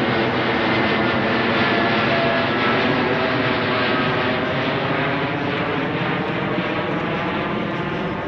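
Jet airliner climbing out overhead after takeoff: steady jet engine noise full of layered tones, slowly getting quieter as the plane moves away.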